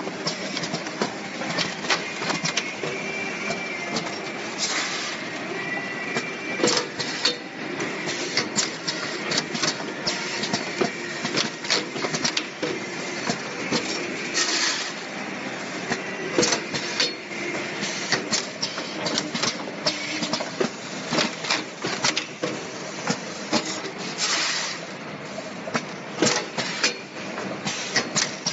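Single-station premade-pouch packing machine running: a steady mechanical clatter with many sharp clicks and knocks from its grippers and moving parts, and a short hiss about every ten seconds.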